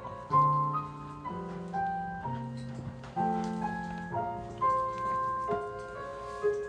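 Background piano music: a slow run of held notes and chords that change about once a second.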